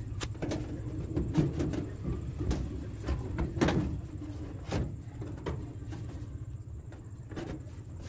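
Sheet-metal back cover of a washing machine being handled and fitted into place, knocking and clattering about once a second, over a low steady hum.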